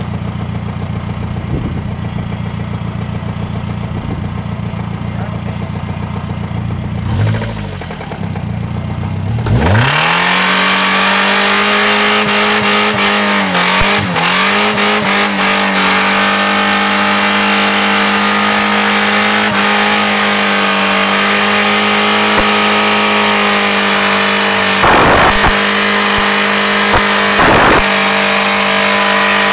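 Peugeot 306's 1.4-litre four-cylinder petrol engine idling, then about ten seconds in revved up and held at a steady high rpm, with a few brief dips in revs, as it is run flat out to blow it up.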